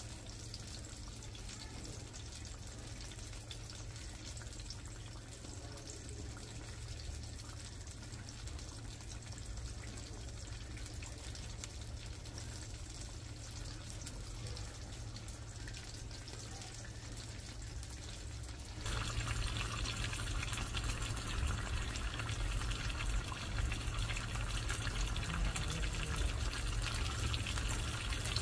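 Pieces of tongue fish frying in hot oil in a pan over a wood fire, sizzling steadily. About nineteen seconds in, the sizzle suddenly gets louder and brighter.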